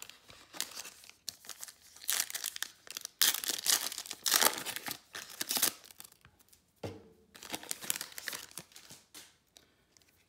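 Foil wrapper of a Panini Prizm basketball card pack being crinkled and torn open, loudest a couple of seconds in, then lighter crinkling as the cards are slid out.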